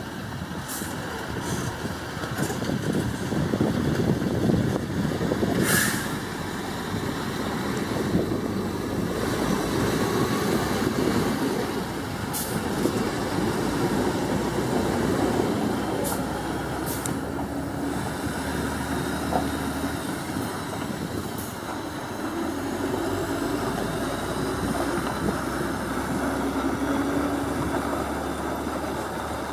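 Heavy semi-trailer dump truck's diesel engine running steadily as it drives slowly over rough dirt ground. A few short, sharp sounds cut in over the engine, the largest about six seconds in.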